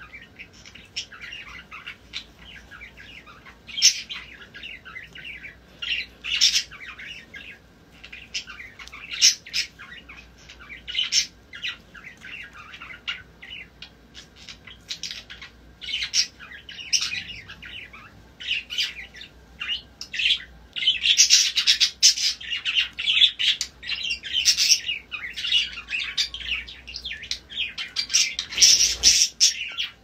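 Pet parrots chirping and squawking in many short, high calls, busier and louder in the last third.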